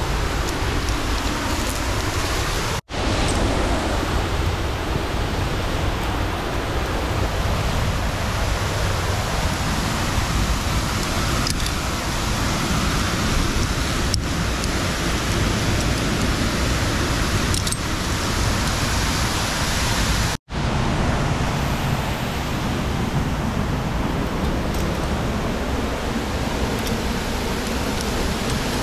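Waterfall rushing: a steady roar of falling water, broken by two brief cuts to silence, about three seconds in and again near twenty seconds.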